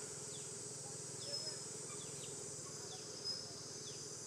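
A steady, high-pitched insect chorus, with short falling chirps repeating every half second or so and two brief high notes, one a little after a second in and one past three seconds.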